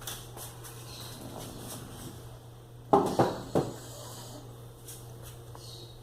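A sleeping dog snoring, with three short, loud sounds in quick succession about halfway through.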